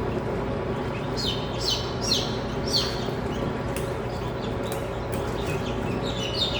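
Newly hatched chicks peeping in a series of short, downward-sliding peeps, clustered in the first half and again near the end, over a steady low hum.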